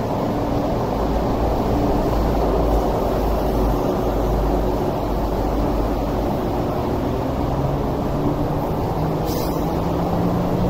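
MTR East Rail Line MLR electric train running past, a steady low rumble of wheels on track with a faint hum that rises slightly in pitch over the last few seconds.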